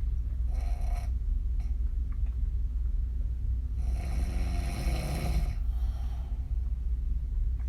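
Woman snoring through an open mouth, her lips blowing on the exhale. There is a short breath about half a second in and one longer snore about four seconds in, over a steady low hum.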